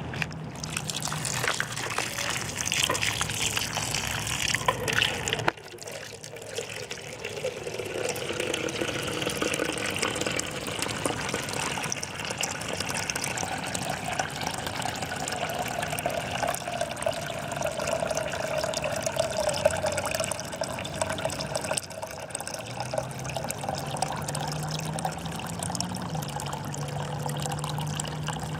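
Water running steadily into a container, its pitch rising slowly as the container fills.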